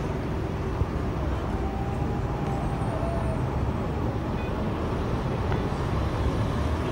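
Steady road traffic: cars and minibuses running on a busy street, with a continuous low rumble.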